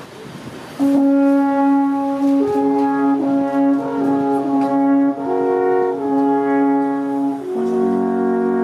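Alphorns playing a slow, solemn tune in harmony, with long held notes that change every second or two. The playing comes in about a second in, after a brief break.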